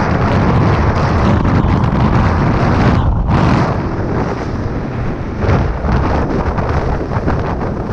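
Strong blizzard wind buffeting the microphone, a loud, steady roar with a brief lull about three seconds in.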